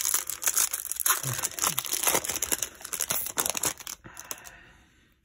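Foil wrapper of a baseball card pack crinkling and crumpling in the hands as the pack is opened: a dense crackle for about four seconds, then softer rustling that fades near the end.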